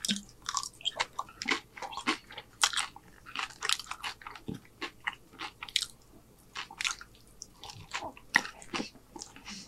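Close-miked chewing of loaded nachos: crisp, irregular crunches of tortilla chips, several a second, with softer wet chewing between them.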